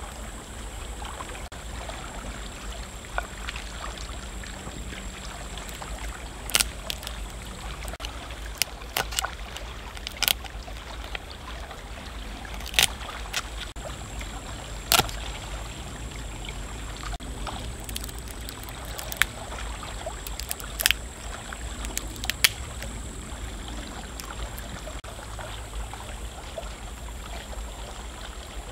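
A river running steadily, with sharp knocks scattered through as a knife cuts on a wooden log slice. A thin high steady tone sounds through the middle.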